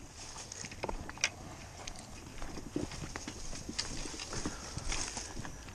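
Footsteps on rocky ground, an uneven series of short knocks and crunches as someone walks.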